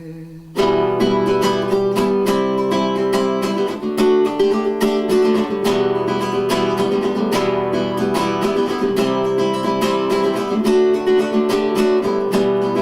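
Acoustic guitar played solo in an instrumental break of a slow ballad, strummed chords with picked notes. It comes in about half a second in, after a held sung note dies away.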